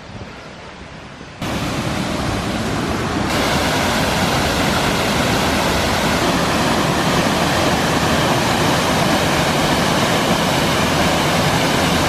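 Sgwd Clun-Gwyn waterfall rushing, a loud steady roar of falling water. It cuts in suddenly about a second and a half in, after a quieter stretch of outdoor ambience.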